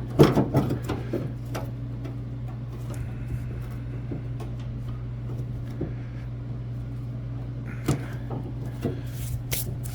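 Scattered clicks and light metallic knocks of hand tools and tailgate latch parts being handled, bunched in the first second and a half and again near the end, over a steady low hum.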